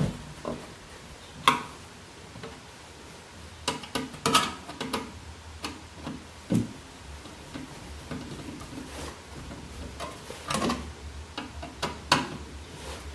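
Irregular clicks and knocks of hardware being handled and fastened in a metal computer case, heard a dozen or so times at uneven intervals.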